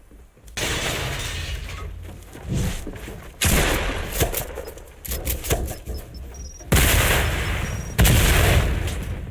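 Shotgun fired four times, each blast a sudden loud bang that trails off slowly over a second or two.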